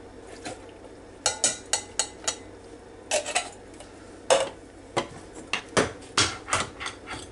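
Opened tin cans and a glass measuring cup clinking and knocking together while canned green beans are drained and tipped out. A string of sharp clicks and clanks starts about a second in, with the loudest knock a little past four seconds and a quicker run of knocks near the end.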